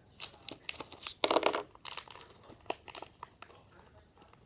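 Crinkling and rustling of packaging as baking soda is added to the slime mix, with one louder rustle about a second in.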